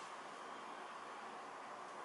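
Steady, faint background hiss with no distinct events.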